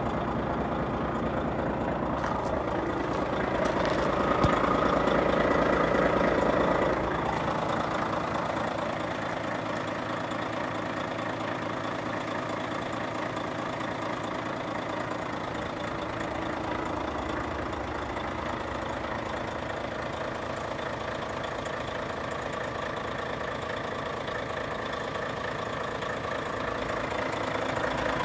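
Volvo FH500 truck's 13-litre six-cylinder diesel idling steadily, a little louder from about three to seven seconds in.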